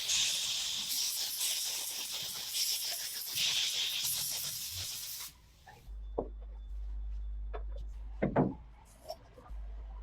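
Spray paint hissing steadily as engine case parts are sprayed silver, stopping about five seconds in. After that, a low hum with a few light knocks.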